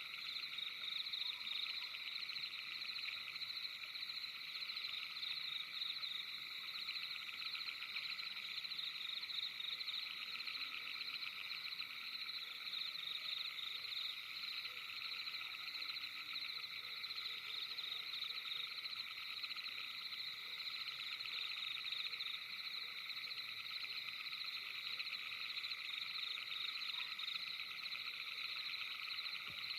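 Dense night chorus of frogs: a steady, continuous rapid trilling of many overlapping calls.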